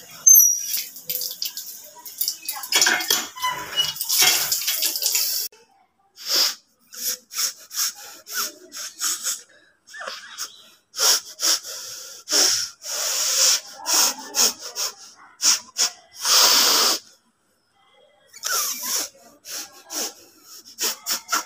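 A person blowing their nose hard again and again, trying to force the mucus out: many short, sharp bursts of air through the nose with brief pauses between them, and a few longer blows, the longest about 16 seconds in.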